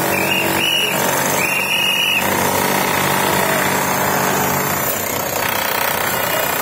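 A power tool running steadily with rapid hammering, with three short high-pitched tones in the first two seconds.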